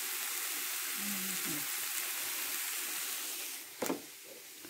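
Tomato-and-spice masala sizzling in a frying pan as it is stirred with a wooden spoon, a steady frying hiss. A little past three and a half seconds the sizzle drops away sharply, with a single sharp knock just after.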